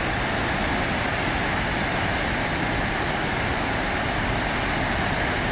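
A large waterfall rushing steadily, an even, unbroken wash of white-water noise.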